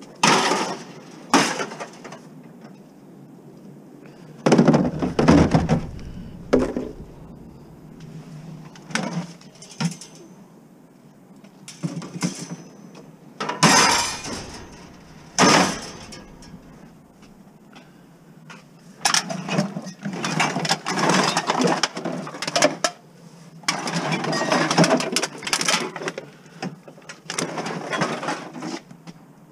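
Metal wire shelving racks and other scrap metal clanking and rattling as they are dropped and shifted into a plastic tub. There are a few separate sharp clanks in the first half, then longer stretches of rattling clatter in the second half.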